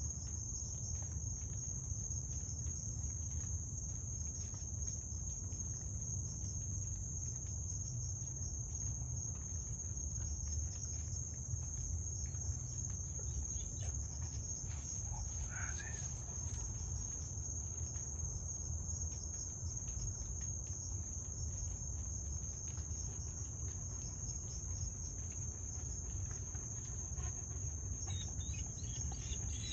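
A chorus of crickets trilling in one continuous high-pitched drone, over a steady low rumble.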